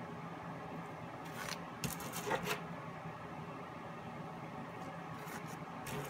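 A plastic wide-tooth comb scraping and clicking against the edge of a wet acrylic-pour canvas. The sounds come in two short bunches of quick scrapes, one about a second in and one near the end, over a faint steady hum.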